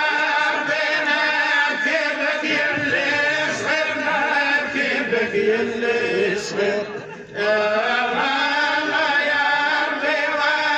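Men's voices chanting a Sufi dhikr in a continuous, melodic line; the chant breaks off briefly about seven seconds in and resumes.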